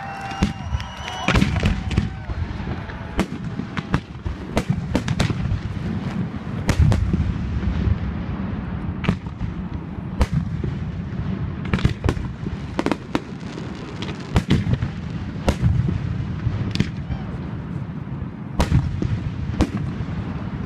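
Fireworks display: aerial shells bursting in a rapid, irregular series of sharp bangs, over a steady low rumble.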